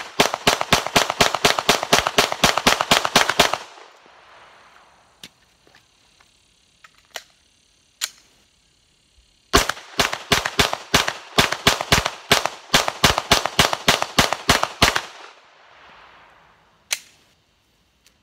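Gen 1 Glock 17 9mm pistol with a Zevtech compensator fired rapidly in two long strings, about five shots a second. The strings are separated by a pause of about six seconds that holds a few light clicks. One more sharp crack comes near the end.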